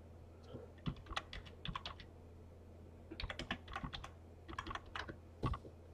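Computer keyboard being typed on in three short bursts of faint clicks, with a low steady hum underneath.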